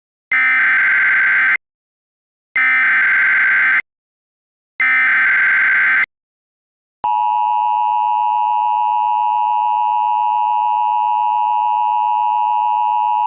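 Emergency Alert System SAME header: three identical bursts of warbling digital data tones, each about a second and a quarter long and about a second apart. About a second later the steady two-tone EAS attention signal begins and holds unbroken.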